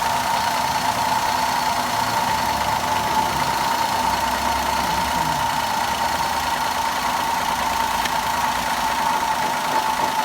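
Maruti Wagon R's three-cylinder K-series engine idling steadily after its faulty ignition coils were replaced: the cylinder misfire is gone. A steady high-pitched whine runs under it and cuts off suddenly at the end.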